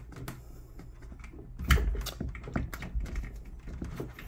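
Irregular clicks, knocks and rattles of hands fumbling a fish finder power cable connector inside a kayak's hatch, working one-handed to plug it in.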